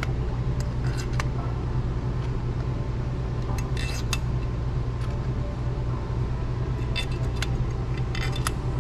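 Small metal spacers and screws clicking and clinking against the radio unit's metal chassis as they are fitted by hand, in a few short clusters. A steady low hum runs underneath.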